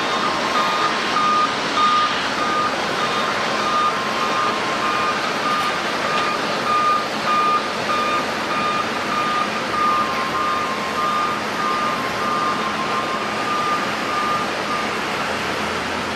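A vehicle's reversing alarm beeping about twice a second, stopping near the end, over steady airport noise from jet aircraft engines.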